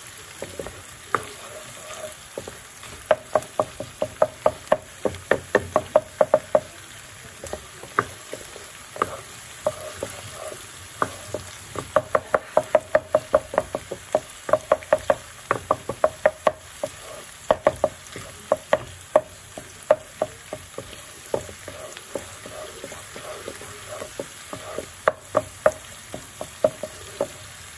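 Wooden spatula tapping and scraping against a non-stick wok in quick runs of several strokes a second, stirring minced beef frying with onion and garlic, over a steady sizzle.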